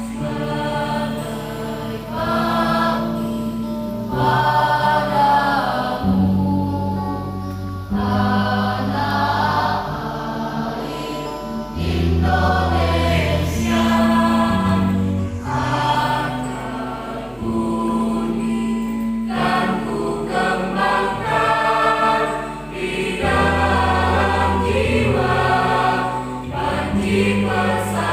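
Mixed choir of young men and women singing in parts, in phrases of a couple of seconds over long held low notes.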